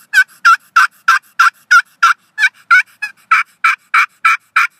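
Primos Bamboozled bamboo pot call with a glass surface, worked with a bamboo striker, running a long even series of hen turkey yelps, about three a second. The yelps are really raspy.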